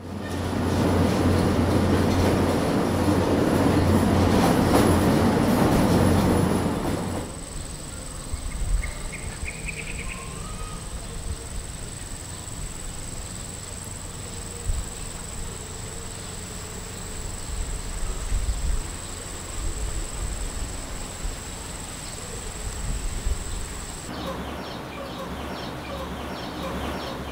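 Loud steady rumble of a moving vehicle for about seven seconds. Then much quieter rural ambience: a thin, steady, high insect drone with a couple of brief bird chirps, which stops near the end and leaves a low hum.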